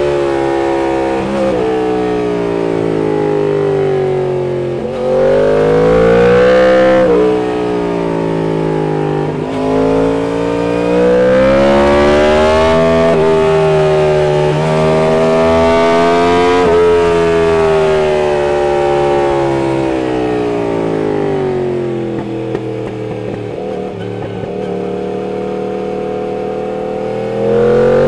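Yamaha MT-10's crossplane inline-four through an aftermarket Austin Racing exhaust, the bike being ridden: the engine note repeatedly rises and falls, with sudden jumps in pitch at gear changes.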